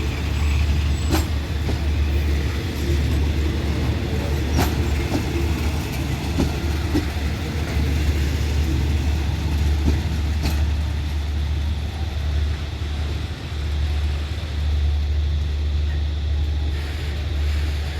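Diesel locomotive running with a steady low drone, with a few sharp clicks or knocks over it.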